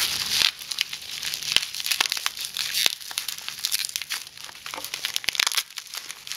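Plastic bubble wrap crinkling and crackling as hands pull it off a glass jar, with many irregular sharp crackles and rustles.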